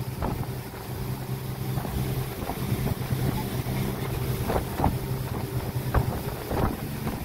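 A river motorboat's engine running steadily under way, a low even hum, with wind rushing over the microphone and water hiss. There are a few short thumps near the middle and end.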